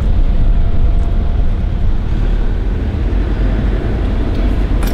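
Toyota Hilux driving on a dirt road, heard from inside the cab: a steady low rumble of tyres and engine, with a few sharp clicks near the end.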